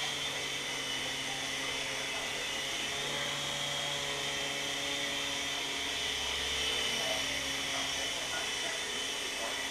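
Mini three-channel RC helicopter's small electric motors and rotors whirring steadily, with a high-pitched whine.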